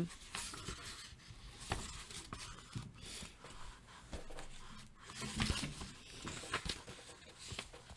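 Faint rustling and scraping with scattered soft clicks.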